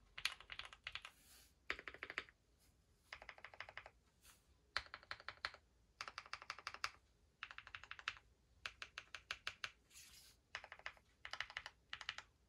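Typing on a Bakeneko60 custom mechanical keyboard with lubed, filmed Zaku switches, an FR4 plate and GMK keycaps. The keystrokes come in quick runs of rapid clicks, with short pauses between them.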